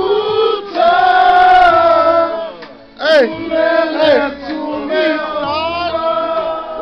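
A group of Samoan men singing loudly together, with a long held note in the first couple of seconds. There is a short break about three seconds in, then the singing picks up again.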